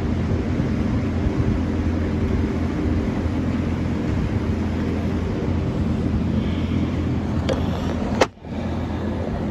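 New Holland LS160 skid steer's diesel engine running steadily, driving the hydraulics of a firewood processor. Near the end come two sharp knocks, then a brief dropout as the camera is handled.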